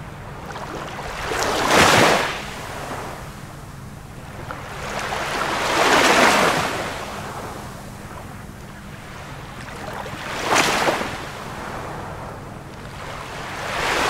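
Ocean waves washing in, a rushing surge of water that swells and fades about every four seconds.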